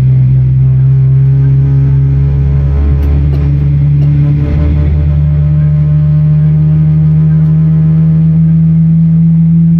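Boeing 777-300ER's GE90 jet engines heard from inside the cabin during engine start: a loud, steady low drone whose hum slowly rises in pitch as the engine spools up.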